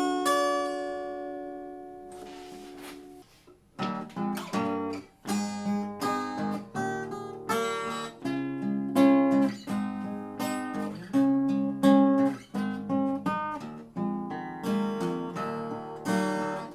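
Acoustic guitar: a chord rings out and fades away, and after a brief pause fingerpicked playing starts up again with a steady pulse of plucked notes.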